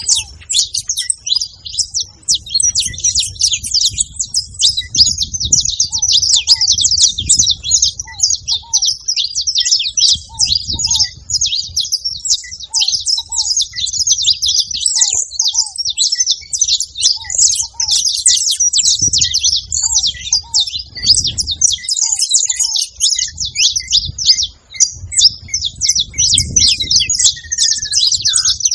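Several saffron finches singing at once, a dense, unbroken chorus of rapid high chirps and trills.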